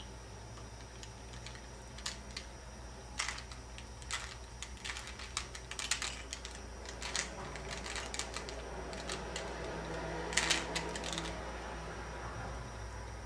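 Plastic Rubik's Cube being turned by hand: rapid, irregular clicks of the layers snapping round, with a quick flurry of turns about ten seconds in before the turning stops.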